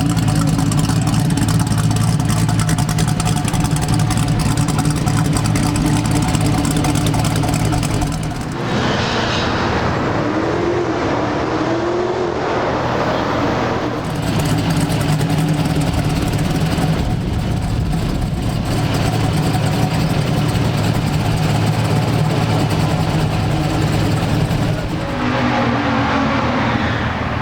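Big-block V8 muscle car engine running at a steady idle. For several seconds near the middle, and again near the end, the sound changes, with short shifts in pitch.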